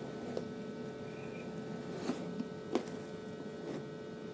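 Steady electrical hum with about four light clicks and taps, from parts of an engraver kit being handled.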